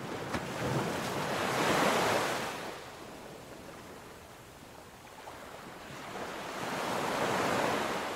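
Surf on a sandy beach: waves break and wash in twice, swelling up about two seconds in and again near the end, then falling away.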